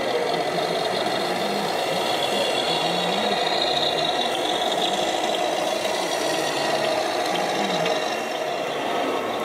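Simulated diesel engine sound from a radio-controlled model truck's sound unit, a low rattling, knocking engine note whose pitch rises and falls as the truck is driven.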